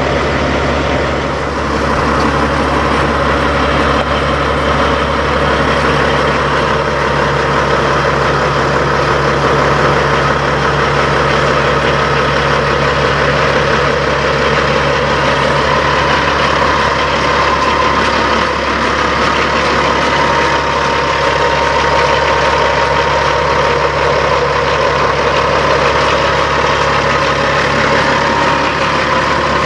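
Peterbilt semi truck's diesel engine idling steadily, heard close up.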